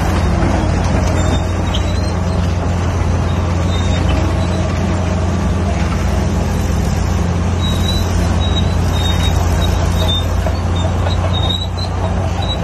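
Vintage crawler dozer's engine running steadily under load while it pushes dirt with its blade: a loud, constant low drone.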